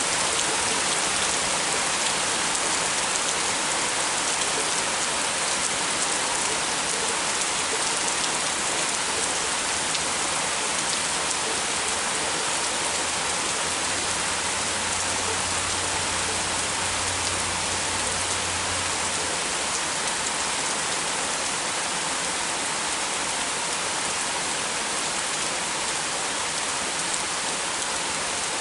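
Heavy rain falling and pattering on surfaces, a dense steady downpour. A faint low rumble sits under it for several seconds around the middle.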